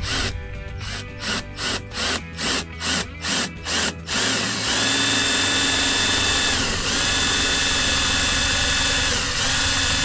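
Ryobi 18V cordless drill with a quarter-inch bit boring through the kayak's plastic hull. For about four seconds it runs in short trigger bursts, two to three a second. Then it runs steadily with a whine that sags and recovers a few times as the bit works through hull that is thicker than expected.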